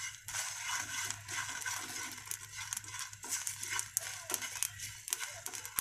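Wooden spatula stirring whole spices (panch phoron, coriander seeds, dried red chillies) as they dry-roast in a nonstick frying pan. The seeds make a quick, irregular scraping and rattling against the pan.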